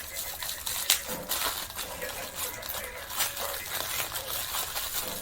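Clicks, taps and rustling of small objects being handled, with one sharp click about a second in.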